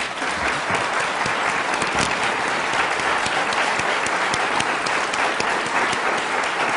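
Large audience applauding: dense, steady clapping from many hands, rising quickly at first and then holding level.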